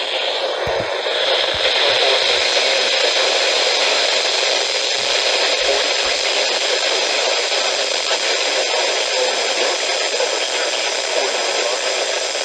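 Loud, steady radio static hiss from a weak, distant station being DXed, the broadcast voice lost under the noise.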